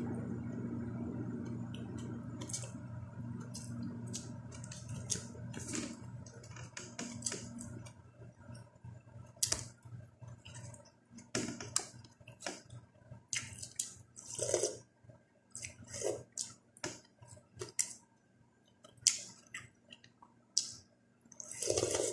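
Close-up eating sounds: chewing, lip smacks and short wet clicks, with a louder slurp of sinigang broth from a spoon near the end. A low steady hum fades away over the first several seconds.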